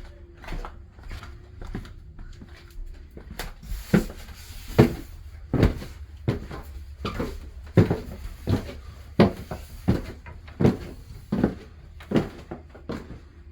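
Footsteps climbing wooden stairs: a steady series of knocks, about one every three-quarters of a second.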